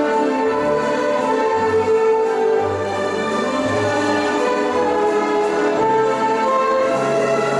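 Instrumental waltz music: a held, sustained melody over a low bass note that sounds about once a second.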